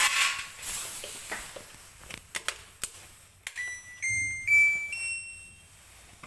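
A short electronic melody of four beeps, each a step higher in pitch, starting about three and a half seconds in. Before it, rustling handling noise and a few sharp clicks.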